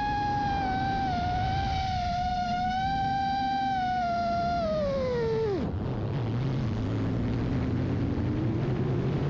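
FPV quadcopter's motors whining at a high, wavering pitch, then dropping steeply in pitch about five and a half seconds in to a low hum.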